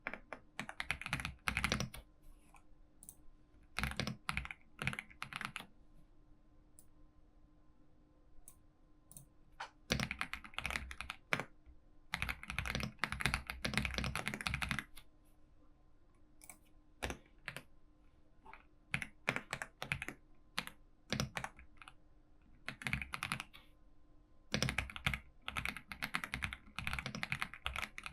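Typing on a computer keyboard in quick runs of key clicks, broken by short pauses.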